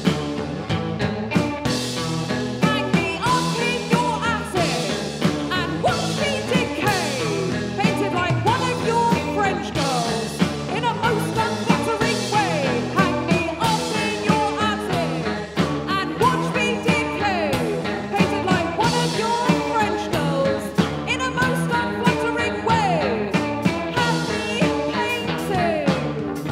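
Live rock band playing a song: drums hitting a steady beat under full-band music, with pitched notes that slide and bend.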